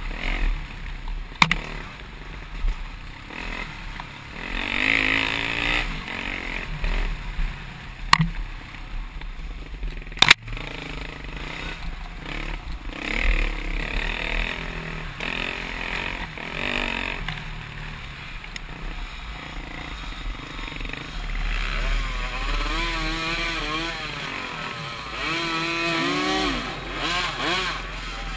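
Dirt bike engine revving up and down while riding a rough trail, heard from a helmet camera, with the pitch rising and falling repeatedly near the end as the throttle is worked. Three sharp knocks stand out, about a second and a half, eight seconds and ten seconds in.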